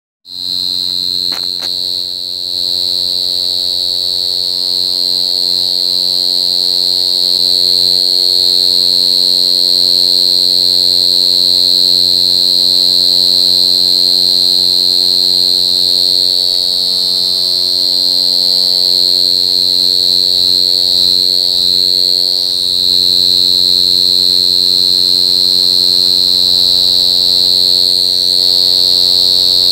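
Crickets chirping in a continuous high-pitched chorus, with a steady low hum underneath.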